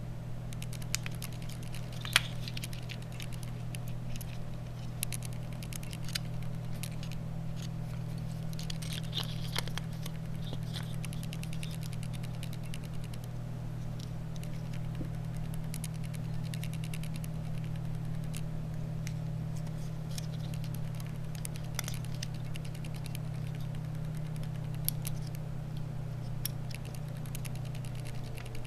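Small plastic clicks, taps and scratching from a BlackBerry Curve 8520's keyboard and front housing being handled and pressed back together, scattered irregularly, with a sharper click about two seconds in. A steady low hum runs underneath.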